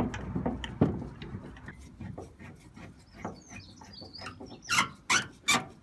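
Hand tools clicking and knocking on the metal bracket of a VW T4 sliding door's lower roller as it is fastened in place, with one sharp knock about a second in. A bird chirps faintly midway, and three short scraping sounds come near the end.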